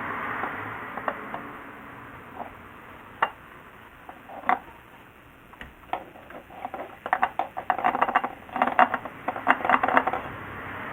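Light metallic clinks and taps of tools and parts being handled, scattered at first, then a quick run of rattling clicks over the last few seconds. A hiss fades away in the first couple of seconds.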